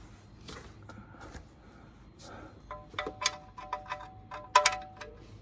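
Metal tools clinking together with short ringing tones, a quick run of sharp clinks in the second half. Before them come a few soft rubbing sounds.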